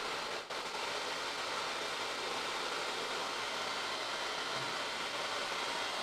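Handheld hair dryer blowing steadily, a constant airy hiss with a brief dip about half a second in. It is not switched to its highest setting.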